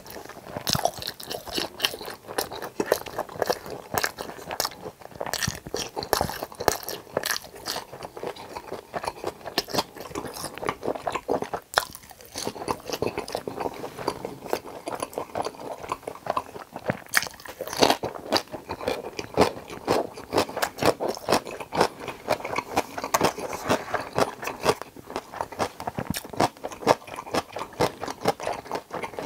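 Close-miked chewing of sauce-coated tangsuyuk (battered fried pork topped with cheese): dense, irregular crunching and wet smacking bites, with a short lull about twelve seconds in.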